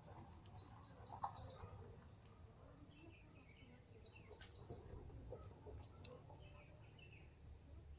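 Small bird chirping: a quick run of high chirps about a second in and again past halfway, with softer, lower notes between.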